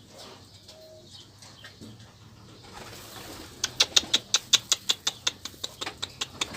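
Pigeon flapping its wings: a fast run of wingbeats, about six a second, starting about three and a half seconds in and lasting some three seconds.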